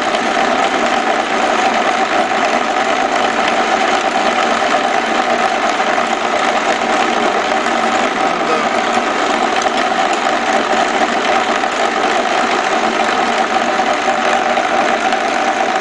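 ТВ-6 metalworking lathe running, with an even, unchanging machine whir and hum.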